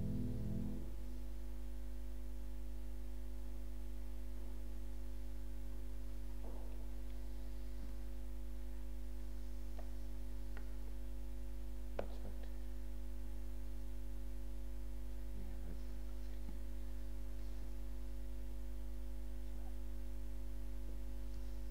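Steady electrical mains hum with a few faint higher tones over it, left behind as a piece of music stops in the first second. A few faint knocks, the sharpest a single click about twelve seconds in.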